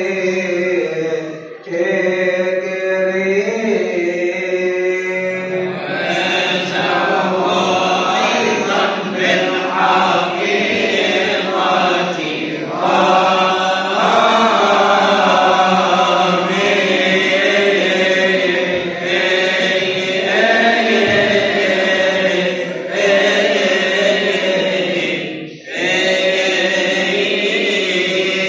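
Male voices chanting a Coptic Orthodox liturgical hymn in long, drawn-out melismatic phrases, with a short breath break about a second and a half in and another near the end.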